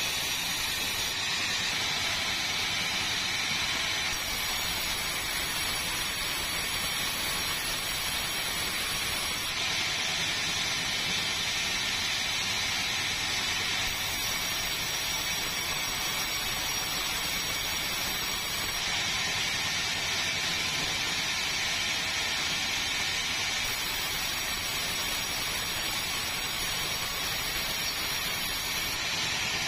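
Sawmill machinery running, a steady hissing noise at an even level throughout.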